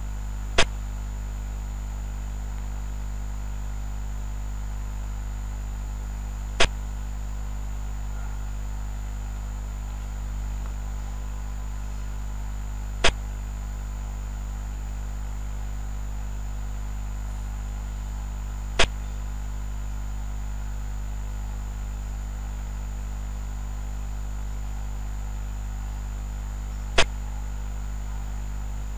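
Piece-move sound effect of a xiangqi replay board: five sharp clicks, several seconds apart, each as a piece is placed. They sound over a steady low electrical hum.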